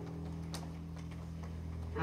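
Upright bass sustaining one low bowed note softly and steadily, with a single sharp click about half a second in.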